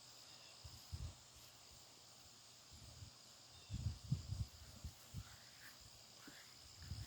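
Faint pasture ambience: a steady high trill of crickets, with a few low bumps and rumbles about a second in and again around four seconds in.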